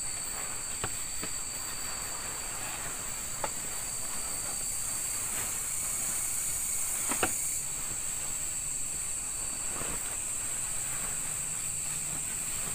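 Steady high-pitched drone of night insects with a thin whine beneath it over a broad hiss. A few light clicks and rustles come from someone settling into a sleeping bag; the sharpest is about seven seconds in.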